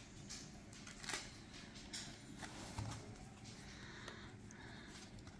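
Faint rustle and soft slides of tarot cards as one is drawn from a fanned deck on the table and lifted up, in a few short strokes.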